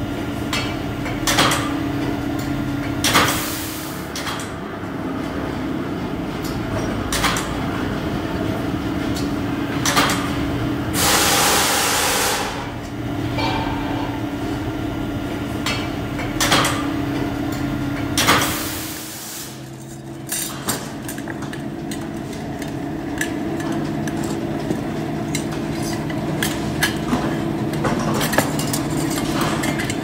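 Sheet-metal forming machine running with a steady hum while metal duct rings are worked and handled, with sharp metallic clanks every few seconds and a hissing rush about eleven seconds in. The hum drops and changes pitch a little after halfway, followed by many small metallic clicks.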